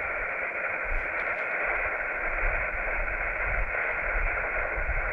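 Portable HF transceiver's speaker hissing steadily with band noise on an open SSB voice frequency between contacts, the hiss cut off sharply above the receiver's narrow voice passband.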